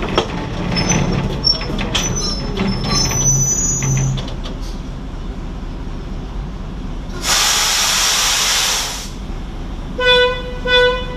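Plymouth gasoline switcher locomotive rolling slowly along the track, with thin squeals from the wheels in the first few seconds. Then a loud hiss lasting under two seconds. Near the end, short horn toots in quick succession.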